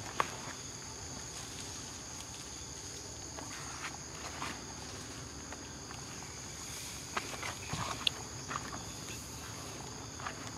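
Insects droning steadily at a high pitch, with footsteps on a forest path coming as scattered short clicks and crunches, several close together in the second half.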